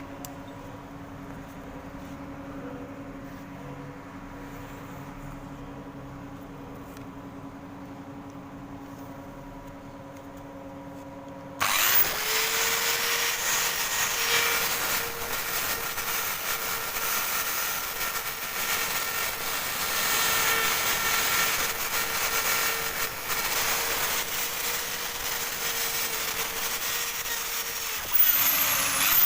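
An electric drill with a wire brush starts suddenly about twelve seconds in and runs at steady speed, the wire bristles scraping over the rusty metal of an exhaust pipe to clean it; just before the end it briefly slows and catches again. Before it starts, only a steady low hum.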